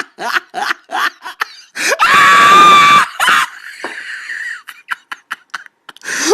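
A person laughing hysterically: quick, evenly spaced bursts of laughter that break into a long, high-pitched shriek about two seconds in, followed by a breathy gasp and a few more short bursts.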